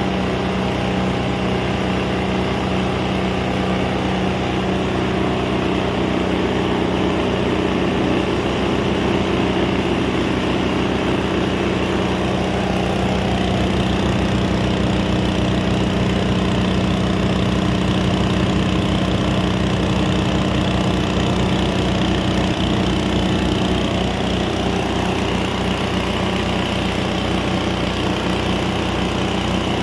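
Motor-driven grinding and chopping machine running steadily, a continuous engine-like drone with a noisy grinding layer over it; its tone shifts slightly about two-thirds of the way through.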